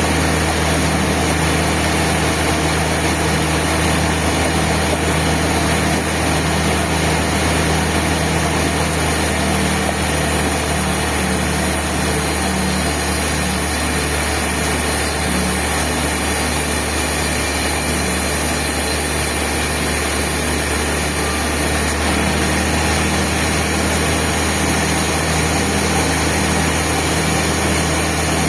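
Band sawmill running, a steady loud machine noise with a constant low hum and a slight change in tone about three-quarters of the way through.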